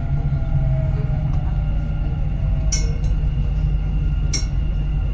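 Dubai Metro train running on its track, heard from inside the carriage: a steady low rumble with a faint falling whine in the first half, and three sharp clicks in the second half.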